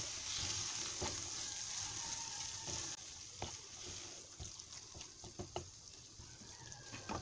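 Vegetable and tuna filling sizzling in a frying pan as a wooden spoon stirs it, with scattered light scrapes and taps of the spoon against the pan. The sizzle drops noticeably quieter about three seconds in.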